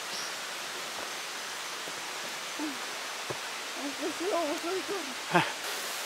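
Steady rush of flowing water. About two-thirds of the way through, a voice murmurs briefly, and a short sharp sound comes just before the end.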